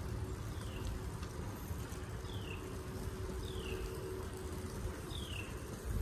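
Wind and rumble on a handheld phone while cycling on a paved trail, with a bird's short falling call repeated about every second and a half, and a faint steady hum that fades out near the end.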